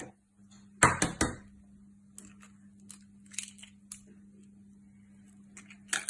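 A raw egg tapped against the rim of a plastic bowl and its shell broken open, with a loud cluster of knocks about a second in, a few small clicks after it and another sharp knock near the end. A steady low hum runs underneath.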